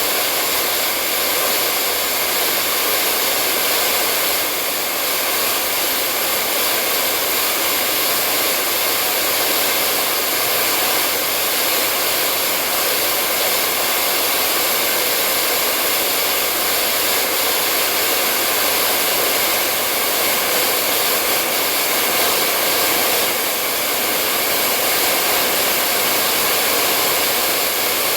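Hair dryer running steadily: a constant airy rush of blown air with a faint motor hum, used as white noise to lull a baby to sleep.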